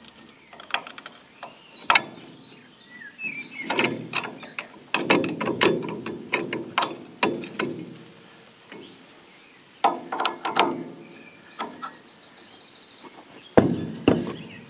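Steel leg of a McConnel mobile sawbench being slid down and locked: irregular metal clanks, knocks and rattles from the leg, its locking pin and its chained locking screw, with some short ringing.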